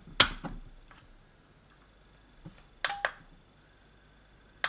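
A faulty smart plug is pushed into a mains socket with a sharp clack, then gives a faint high-pitched whine. About three seconds in its relay clicks twice, the sign of a fault that has it clicking on and off by itself.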